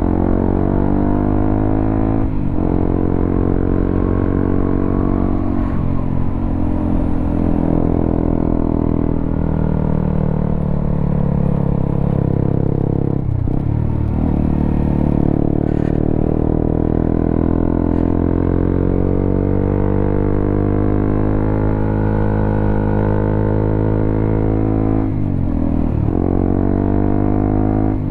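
Honda CBR motorcycle engine running through a WRX K3 oval aftermarket silencer on the stock header, while riding. The engine note climbs steadily and then drops sharply about four times, as the revs rise and fall.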